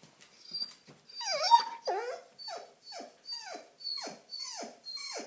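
German Shepherd whining and 'talking' in a string of short cries, each falling in pitch, about two a second, the first two louder and longer; the dog is eager to be let outside.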